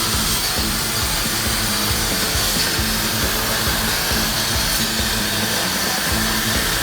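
CNC laser cutting machine cutting hot-rolled steel sheet: a steady hiss with a faint high whine, under background music.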